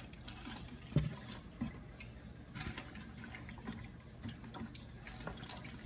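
Faint water trickling and dripping, with small irregular ticks and two soft knocks about a second in.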